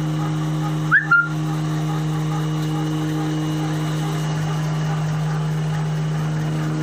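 A four-lane V-fold hand towel paper folding machine running: a steady electric hum with a faint regular ticking, and a brief sharp squeak about a second in.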